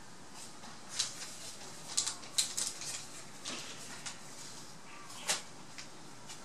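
Scattered short, sharp high-pitched chirps and clicks, about a dozen in irregular clusters, over a steady hiss.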